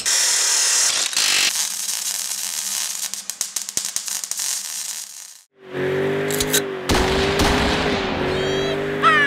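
A harsh hissing noise full of rapid crackling clicks cuts off about five seconds in. It is followed by a Ford Mustang GT's 4.6-litre V8 held at steady high revs during a burnout, with tyres squealing near the end.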